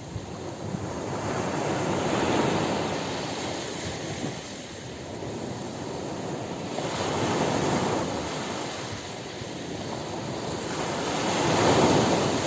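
Ocean surf breaking on a beach, a steady rush of water that swells and eases as three waves come in, the last the loudest near the end.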